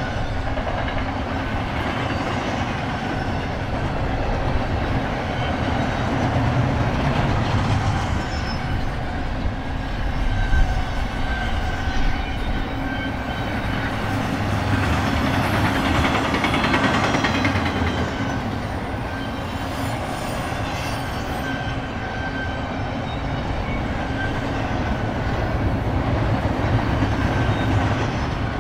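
Double-stack intermodal freight cars rolling past at steady speed: a continuous rumble and rattle of steel wheels on rail that swells and fades slowly, with a faint ringing tone from the wheels coming and going. A sharper clank stands out about ten seconds in.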